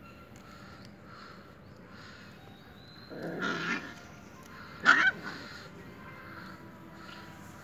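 Puppies play-fighting: a growl about three seconds in, then a single short, sharp yelp about five seconds in, the loudest sound.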